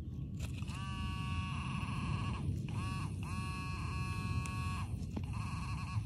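Handheld metal-detecting pinpointer buzzing as it is probed through loose soil over a buried metal target: a steady buzzing tone that comes in three stretches of a second or two, with short gaps and brief chirps between as the probe moves on and off the target.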